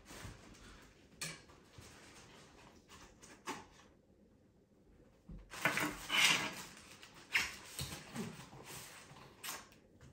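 Cardboard box and paper packaging being handled: rustling and scraping with a few light knocks. The noise is busiest past the middle, with a couple of sharper knocks near the end.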